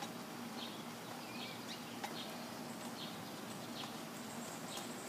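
Faint bird chirps, short and repeated every half second to a second, over a low steady hum, with a couple of light clicks.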